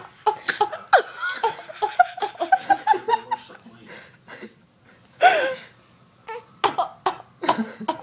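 Someone laughing in a quick run of high-pitched giggles, then a few short coughs near the end.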